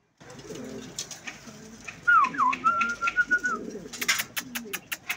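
Domestic pigeons cooing, low bubbling coos throughout. A clear high whistled note comes in about two seconds in, dips and is held briefly, and is the loudest sound. A quick run of sharp claps follows near the end.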